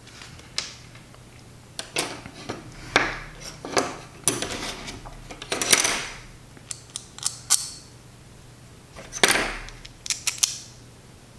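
Small screws and carbon-fibre frame parts handled during drone-frame assembly: irregular clicks and taps, with a few short scraping or rustling sounds mixed in.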